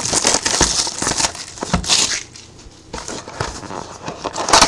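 Cardboard mini box of trading cards being handled and torn open, with crinkling, rustling and sharp tearing noises. It goes quieter for a moment just past the middle, and there is a loud rip near the end.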